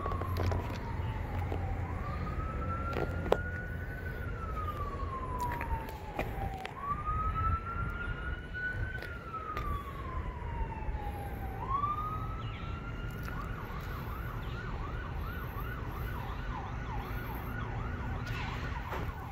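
Emergency vehicle siren wailing in slow rising and falling sweeps, then switching about two-thirds of the way through to a fast yelp of roughly three cycles a second.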